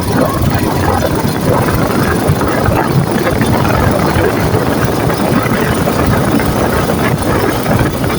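A vehicle engine running steadily under a dense, loud rumble.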